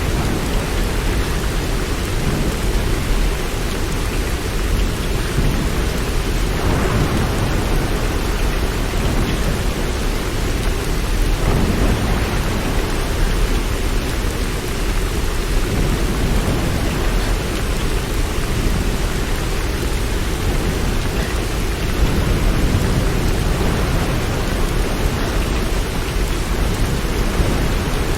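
Steady heavy rain, with a deep low rumble underneath that swells slightly a couple of times.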